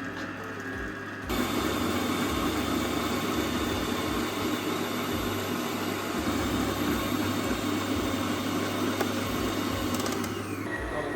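Electric blender running, blending a cake batter of grated carrots, eggs and oil. It steps up to a higher, louder speed about a second in, runs steadily, and near the end is switched off, its motor whine falling as it spins down.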